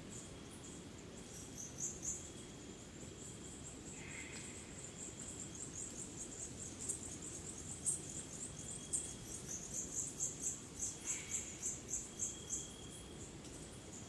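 Crickets and other night insects chirping in fast, high pulses, over a low, steady rush of background noise. About ten seconds in, the chirping swells into a run of louder chirps at about three a second.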